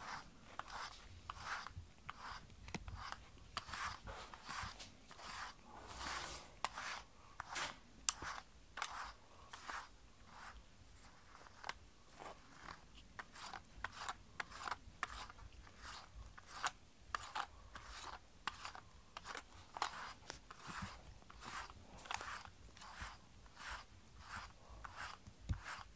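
Pet brush being drawn again and again through a cat's fur, a series of short scratchy strokes about one or two a second.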